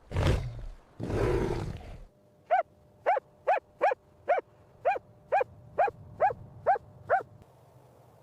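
A big cat roars twice in the first two seconds. Then comes a run of about eleven short, high calls that rise and fall in pitch, about two a second.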